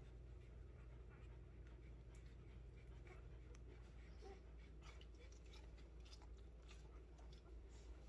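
Near silence: low room hum with faint rustles and small clicks of a newborn puppy being handled.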